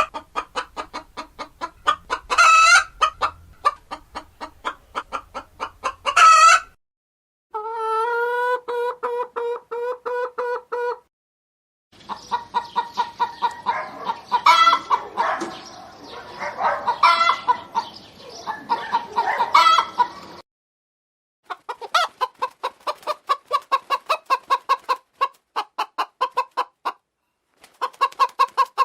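Chickens clucking in quick repeated pulses, with a few loud squawks. The sound comes as a string of separate recordings cut apart by short silences. About a third of the way in there is one long, steady held call, and the middle stretch has several birds clucking over each other.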